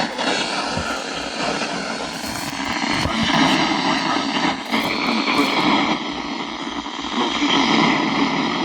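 Loud, steady hiss and static from a radio receiving a weak broadcast signal, with the broadcast barely coming through.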